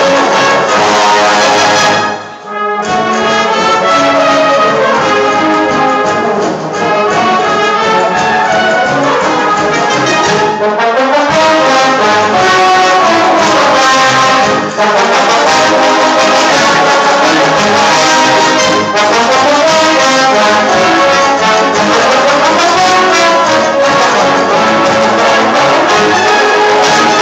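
Brass band playing live, trumpets and trombones to the fore, with a short break in the music about two seconds in.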